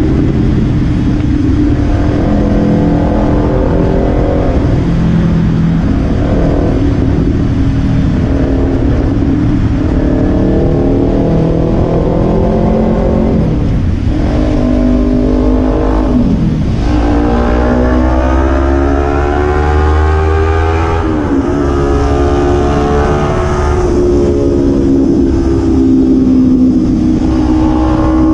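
2014 Kawasaki Ninja 300's parallel-twin engine and exhaust running under way, the revs wavering up and down. About two-thirds of the way through, the revs dip, climb steadily for several seconds through a gear, then drop at a gear change.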